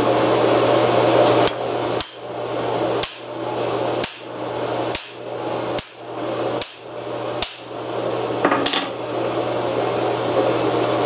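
Ball-peen hammer striking a steel bracket on a lathe tool post held in a vise: about nine sharp metallic blows, roughly a second apart. The blows are meant to crack the milled-down welds holding the bracket on.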